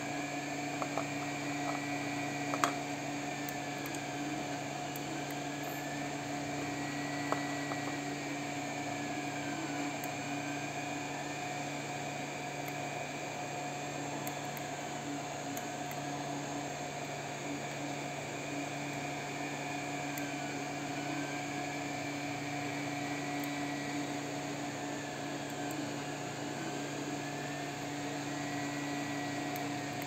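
A steady machine hum with a high whine and a faint tone that sweeps up and down every few seconds, with a few sharp clicks of a macropad's mechanical key switches being pressed, the loudest about two and a half seconds in.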